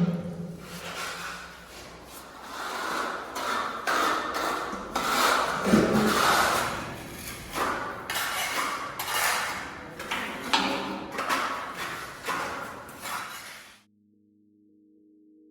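Irregular metallic clanking and knocking from steel parking-equipment construction work, with a few sharper strikes. It cuts off suddenly near the end, and faint steady music tones begin.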